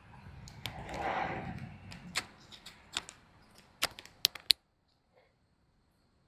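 Rustling handling noise and a scatter of sharp metallic clicks and clinks of tools and parts being handled, ending with a quick run of three or four louder clicks about four and a half seconds in, after which the sound drops away.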